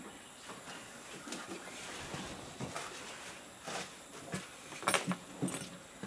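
Irregular small clicks and taps of hands and small dissecting tools handling a bird specimen at a work table, with a sharper cluster of clicks about five seconds in.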